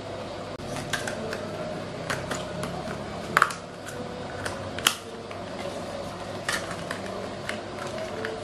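Clear plastic lids being pressed and snapped onto plastic drink cups: a run of light plastic clicks and crackles, with two louder snaps about three and a half and five seconds in.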